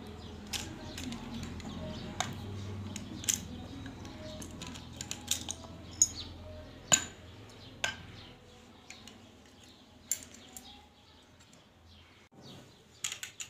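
Scattered sharp metallic clicks and clinks from a Chinese B2 spring-piston air rifle being taken apart by hand, as its steel parts knock together. Under them is a faint low hum that fades about halfway through.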